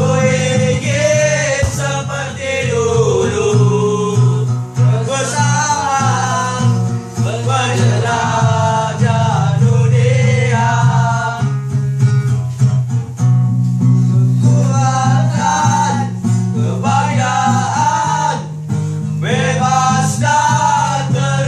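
Several male voices singing together into a microphone, accompanied by an acoustic guitar.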